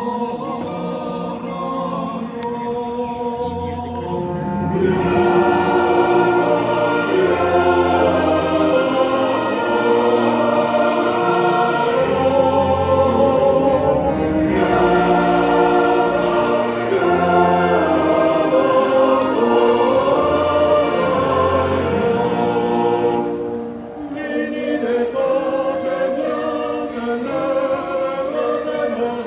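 A large choir singing with accompaniment. It swells louder about five seconds in and drops back briefly about 24 seconds in before going on.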